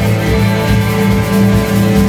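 A live post-punk band playing loudly, with a synth keyboard holding steady chords over electric guitar and bass.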